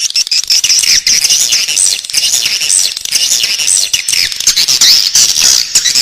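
Swiftlet chicks in the nest calling: a loud, dense, continuous chorus of high, rapid chirps and squeaks.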